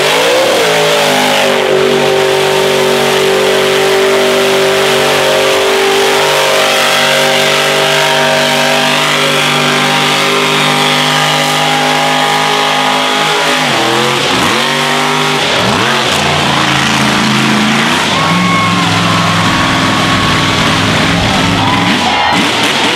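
The 2100-horsepower engine of the Big Guns mega truck held at high revs under full throttle in the mud. About two-thirds of the way through, the pitch drops sharply and climbs back twice, then the engine holds high revs again.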